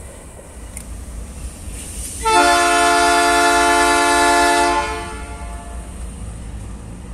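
Diesel freight locomotive's air horn sounding one long chord of several notes, lasting about two and a half seconds and starting about two seconds in, over a steady low rumble.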